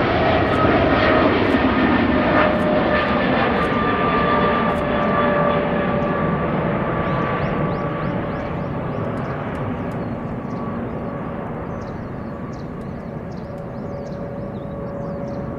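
Boeing 777-300ER's GE90-115B turbofans at takeoff climb power as the airliner climbs away: a steady jet roar with a fan whine that slides slightly lower in pitch. The roar fades over the second half.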